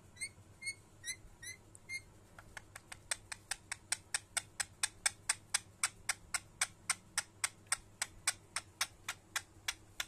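Rose-ringed parakeet giving five short rising chirps, then a long, fast, even run of sharp clicks, about four a second, that stops near the end.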